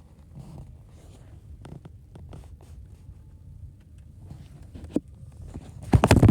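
Low steady rumble of a car cabin on the move, with scattered irregular clicks and rustling, and a loud bump near the end.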